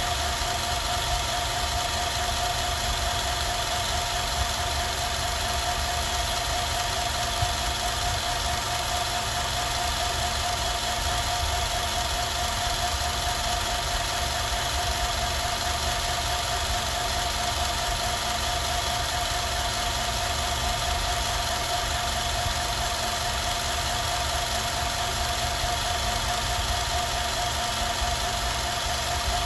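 Film projector running steadily, its motor and mechanism giving a constant hum.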